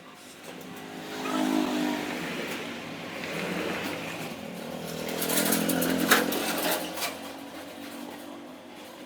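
A small electric motor whirring in two surges, the first about a second and a half in and the second around five seconds in, with a sharp click near six seconds.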